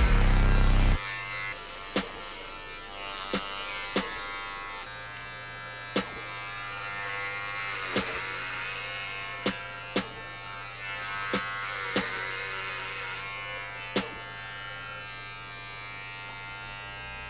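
Electric hair clippers buzzing steadily. The buzz is loud for about the first second, then runs quieter, with a sharp click about every two seconds.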